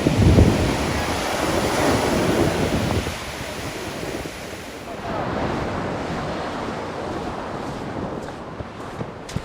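Pacific Ocean surf breaking and washing up the beach, with wind rumbling on the microphone, strongest in the first few seconds. A few sharp clicks near the end.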